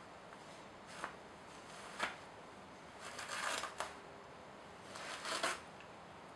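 Toilet paper tearing and rustling as a cat claws and bites at the roll: two short rips, then two longer bouts of tearing of about a second each.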